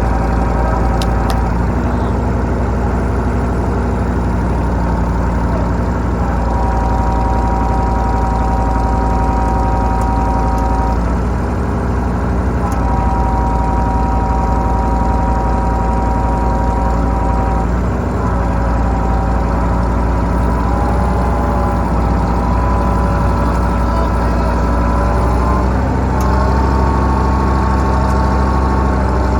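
Kubota tractors' diesel engines running steadily, with a higher whine that comes in, holds and changes pitch in steps several times.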